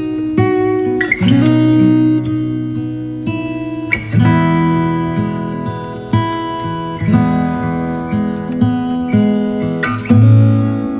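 Background music: acoustic guitar strumming and picking chords, with the chord changing every second or two.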